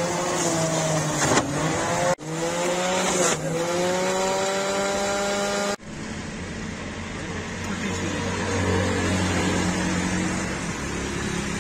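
Electric juicer motor whining, its pitch dipping and climbing back to a steady speed, broken off sharply twice. After about six seconds it gives way to a steadier, lower hum.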